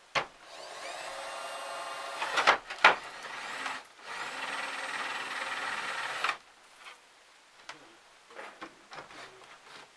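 A small motor-driven power tool runs steadily in two bursts of about two seconds each, with two sharp knocks between them.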